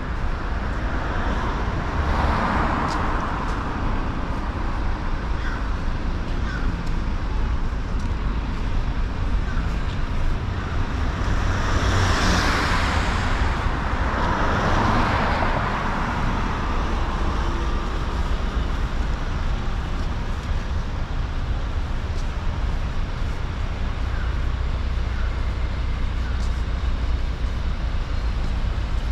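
Road traffic on a city street: a steady low rumble of vehicles, with cars passing by, the loudest swelling up and fading away about twelve seconds in.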